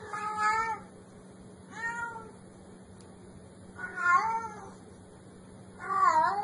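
Domestic cat meowing four times, about two seconds apart, each meow short and bending up and down in pitch.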